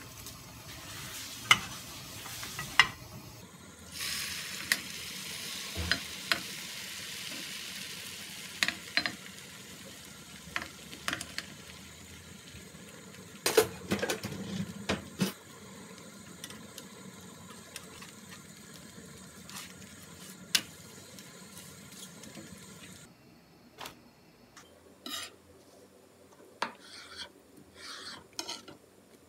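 Beaten egg sizzling as a thin egg sheet fries in a lightly oiled nonstick frying pan, with scattered clicks and scrapes of a utensil against the pan. The sizzle stops a few seconds before the end, and a few soft taps follow as the egg sheet is handled on a plastic cutting board.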